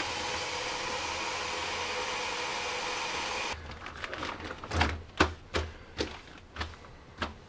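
Tap water running steadily into a Scrubba wash bag, cutting off abruptly about three and a half seconds in. Then the bag is kneaded by hand to agitate the laundry, with irregular sloshing squeezes of the water-filled bag.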